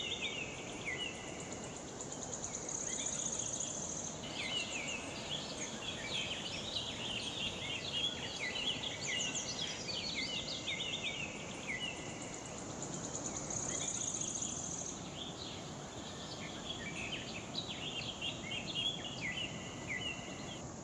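Many birds calling and chirping, with a steady high insect drone that swells twice, over an even rush of water from the dam's spillway.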